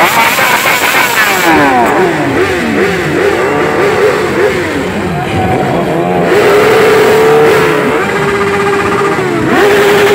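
Sport motorcycle engines revved hard on the spot, their pitch sweeping up and down in repeated blips that overlap one another. From about six seconds in, one engine is held at high revs at a steady high pitch, drops briefly, then is held high again near the end.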